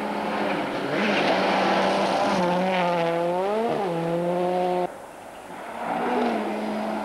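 Rally cars at speed on a gravel stage. The engine note holds steady, then dips and climbs again between about two and a half and four seconds in. The sound cuts off abruptly about five seconds in, and a second car's engine grows louder as it comes through.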